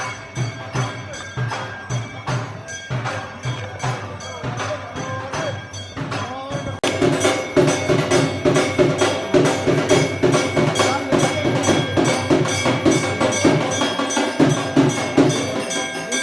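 Temple aarti music played live: drums and hand percussion beating a fast, steady rhythm with temple bells ringing over it. About seven seconds in it suddenly gets louder and fuller.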